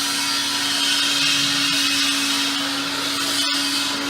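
A motor-driven shop tool running steadily, with a strong high hiss over a steady hum.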